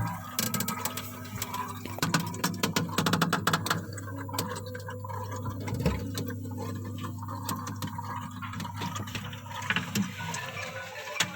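Gurgling, trickling sound like flowing water from the freezer of a Polytron single-door refrigerator, with irregular small crackles over a steady low hum. This is the symptom of a fridge whose compressor runs normally but which does not get cold.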